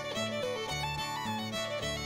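Background music: a fiddle playing a lively melody over a bass line that changes note about every half second.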